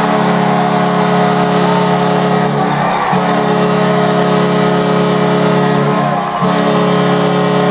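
Hockey arena goal horn sounding after a home-team goal: a loud, steady low chord in three long blasts, broken briefly about three seconds in and again a little after six seconds.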